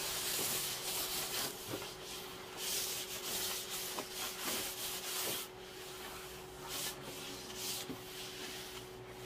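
Hand sanding with fine 2000-grit sandpaper: repeated rubbing strokes over a stained plywood door. This is the light scuff-sanding between finish coats, before the clear coat goes on.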